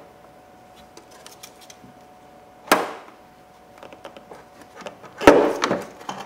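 Plastic coolant overflow bottle being handled and worked loose in a car's engine bay: light clicks and rubbing, a sharp knock near the middle, and a louder cluster of knocks and rattles near the end. A faint steady hum runs underneath.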